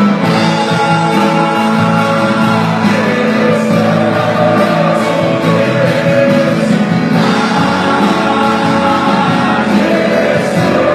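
Live church worship music: a band with guitar playing continuously while voices sing.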